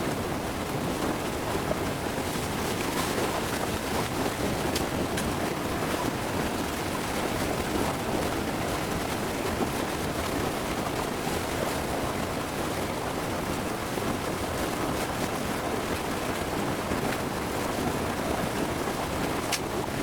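A stream's water rushing steadily, with a few faint clicks.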